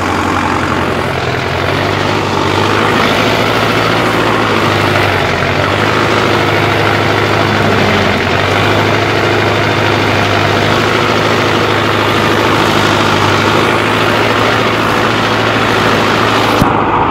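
Four-cylinder diesel engine of a Mahindra Arjun Novo 605 DI turbo tractor, fitted with a modified diesel injection pump, running steadily at a constant speed.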